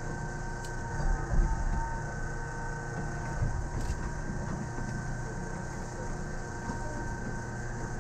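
Rubber-tyred people-mover train moving slowly, heard from inside the driver's cab: a steady low rumble with a constant electrical hum and whine, and a few heavier bumps about a second in.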